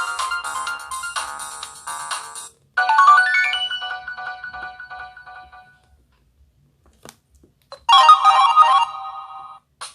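Samsung Gravity 2 (SGH-T469) ringtones played one after another: a melodic electronic tone ends, a new one starts loud about three seconds in and fades away, then after a short silence with a click, another brief melody plays near the end.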